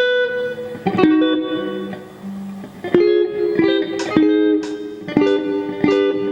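Guitar being played: a plucked note that rings on, then chords struck about a second in and near three seconds, followed by a quicker run of picked notes and chords.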